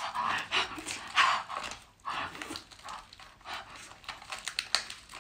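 Mouth noises of eating: loud slurping and sucking at a bundle of shellfish held to the mouth, with hard breaths, coming in uneven bursts with short pauses.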